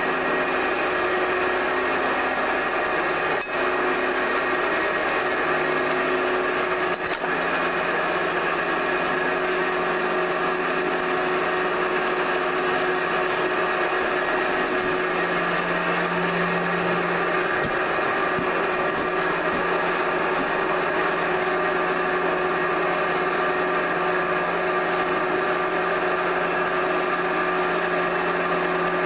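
Electric potter's wheel motor running with a steady hum made of several constant tones. Two short knocks sound about three and seven seconds in.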